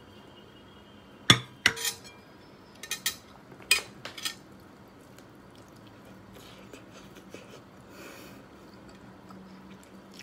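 Soup bowl and plates clinking: a handful of sharp clinks in the first half, then soft sounds of eating rice by hand.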